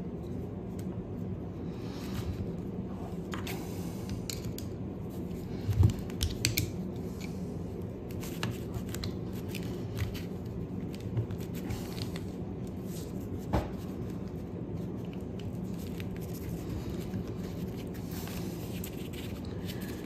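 Small clicks, scrapes and a few light knocks of Robin carburetor parts being handled and fitted together by hand, over a steady low background hum. A couple of low knocks come about six seconds in and a sharp click about two-thirds of the way through.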